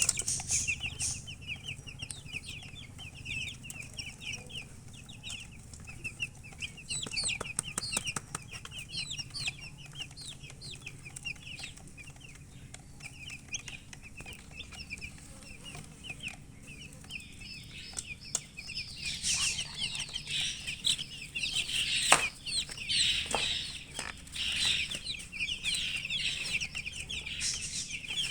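A group of baby chicks peeping: a constant stream of short, high cheeps that grows busier and louder about two-thirds of the way through. A few sharp knocks near the end.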